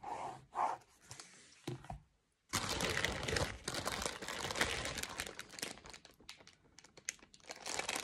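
Clear plastic packaging bag crinkling and rustling as it is handled. The crinkling starts about two and a half seconds in and goes on busily from there.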